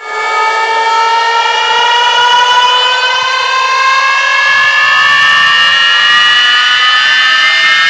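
Loud siren-like electronic tone, rich in overtones, slowly rising in pitch without a break, with a faint low rumble coming in about halfway: a DJ siren riser effect opening a sound-check track.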